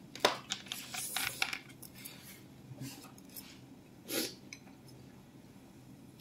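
Cutlery clinking against plates and bowls during a meal: a quick run of clicks in the first second and a half, then scattered clinks and one louder knock about four seconds in.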